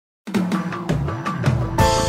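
A TV programme's opening theme music, starting about a quarter of a second in, with sustained tones and regular drum hits and a strong hit near the end.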